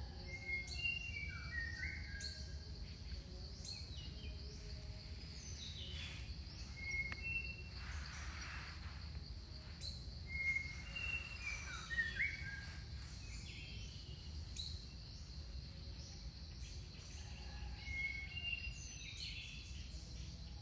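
Several birds calling in jungle with short whistles and chirps, some rising or falling, scattered throughout. Underneath are a steady high-pitched drone and a low rumble.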